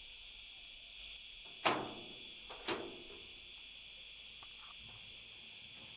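Cicadas buzzing in a steady, high-pitched drone, with two sharp knocks about a second apart near the two-second mark.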